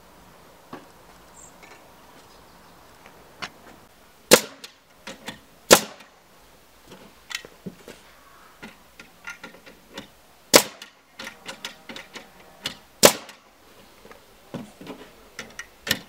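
Pneumatic framing nailer firing nails into a timber wall frame: about five sharp shots a second or more apart, with lighter knocks of the lumber and the tool being shifted in between.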